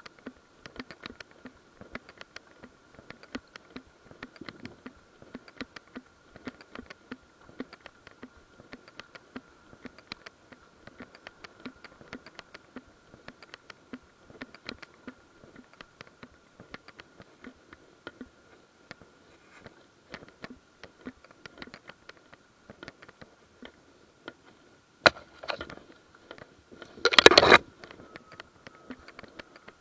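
Walking through woodland undergrowth: dry leaves and twigs crackling and brush scraping close to the camera in quick irregular ticks, over a faint steady high whine. Near the end a sharp knock, then a louder scrape of about half a second.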